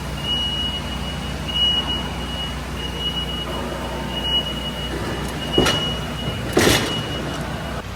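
Steady machinery rumble with a thin, high whine that keeps cutting out and coming back, and two short hissing bursts about a second apart past the middle.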